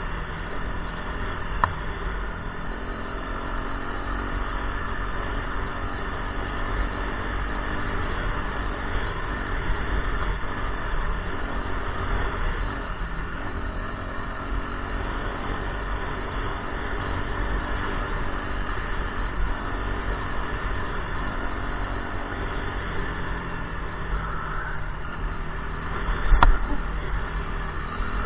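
Off-road motorcycle engine running at a fairly steady, low speed while riding a rough grass track. Near the end there is one sharp knock, the loudest moment.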